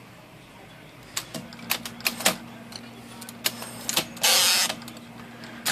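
An IBM Selectric electric typewriter powered up: its motor starts humming steadily about a second and a half in, with scattered clicks from the mechanism and a loud half-second rush as the carrier travels across, while the rotary backspace is being tested after adjustment.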